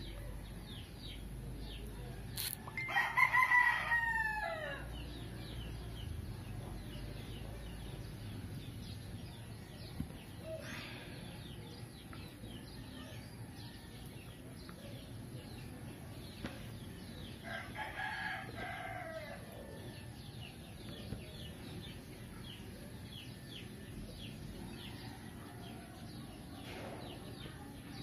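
A rooster crowing twice, each crow about two seconds long and dropping in pitch at the end: the louder one about three seconds in, a second about eighteen seconds in.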